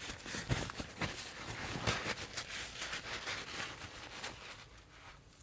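Close rustling with many small clicks and taps as hands handle something at the bench. The sound is busy at first and fades toward the end.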